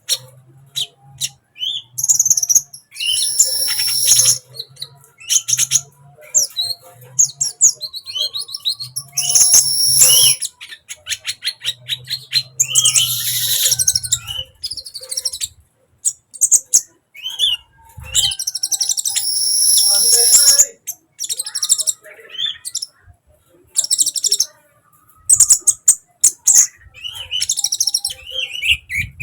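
Sunbird in full song: bursts of rapid, very high-pitched twittering notes lasting a few seconds each, with short pauses between.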